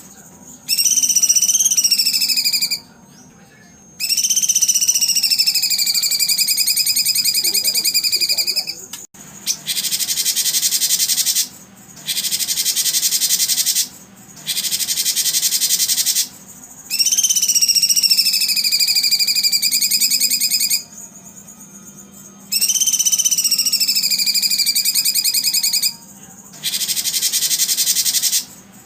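A loud, high buzzing chorus like insects, running in stretches of a few seconds broken by short pauses. Over it come four long whistled calls, each sliding up and then holding a steady pitch for a few seconds.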